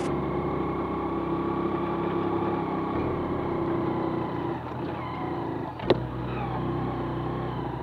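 Motorcycle engine running steadily while riding up a short dirt rise, its pitch shifting a couple of times. A single sharp knock about six seconds in.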